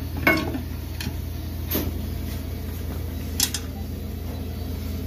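Bolts and a steel mounting bracket being handled and fitted by hand: a few light metal clinks, about a second and a half apart, over a steady low hum.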